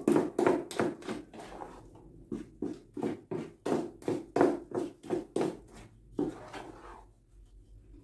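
Wooden spoon beating thick cornmeal cake batter in a large aluminium bowl, in quick even strokes of about three a second, pausing briefly near the end.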